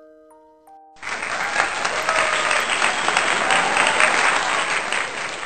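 A few held chime notes ring and fade, then about a second in a burst of applause starts abruptly and carries on, thinning out near the end.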